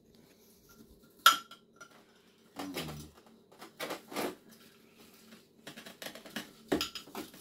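Kitchen knife clinking and scraping against a glass bottle while cutting apart two succulents rooted inside it: a string of separate clicks and knocks, the sharpest about a second in.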